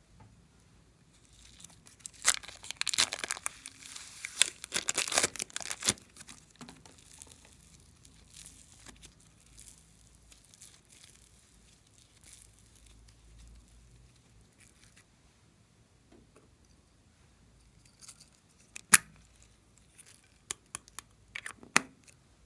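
Slime being stretched and squeezed by hand, crackling and popping densely for about four seconds, then quieter, with a few sharp pops near the end.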